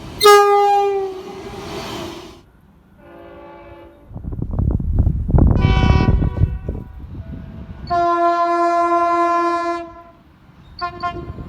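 A string of separate train horn blasts: a loud blast about a quarter second in that falls slightly in pitch, a quieter chord about three seconds in, a blast over a loud low rumble around five to seven seconds in, a long steady blast about eight seconds in, and another starting near the end.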